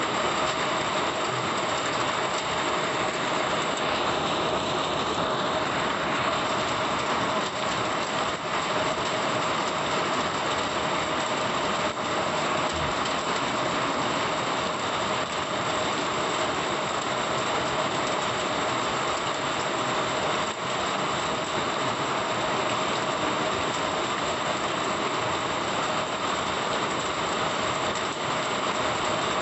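Heavy monsoon rain pouring steadily onto a flooded asphalt road, a dense even hiss of drops splashing on standing water.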